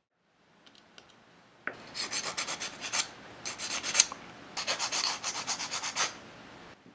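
A tiny wooden block held in tweezers is rubbed back and forth on a file in quick rasping strokes. The strokes come in three runs with short pauses, starting about two seconds in.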